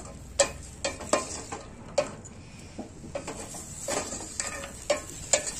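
Wooden spoon stirring peas and chopped carrots in an aluminium pot, with irregular scrapes and knocks against the metal, over a faint sizzle of the vegetables frying in ghee.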